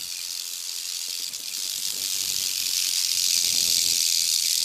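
Rattlesnake shaking its tail rattle of seven segments and a button: a continuous high buzz that grows louder over the first few seconds, the defensive warning of an agitated snake.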